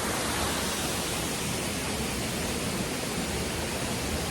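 Steady rushing of waterfall and river water, an even hiss with no breaks.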